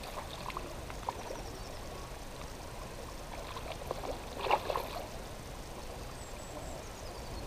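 Hooked salmon trout splashing at the surface of a pond while being played toward the landing net, the splashing loudest about four to five seconds in.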